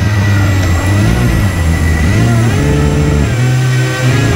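An RC hovercraft's HP server fans running hard, their whine gliding up and down in pitch as the throttle changes.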